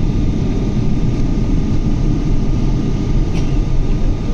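Boeing 777 jet engines running, a steady low rumble with a faint high whine held over it.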